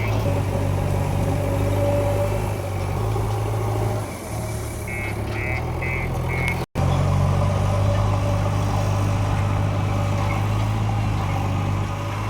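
Heavy vehicle engine running steadily at a constant speed, the loudest sound throughout. About five seconds in, a warning beeper gives a run of four short, high beeps, typical of a reversing alarm.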